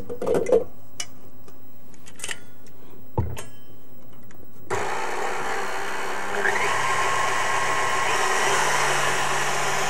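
A few light clicks and a knock, then about five seconds in a KitchenAid Artisan stand mixer switches on suddenly and runs steadily, its wire whip beating whipping cream in the steel bowl.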